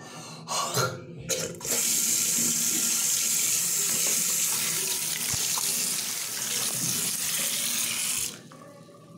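A few short vocal cries in the first second or so, then a bathroom tap running steadily into a sink for about six and a half seconds before it is shut off abruptly.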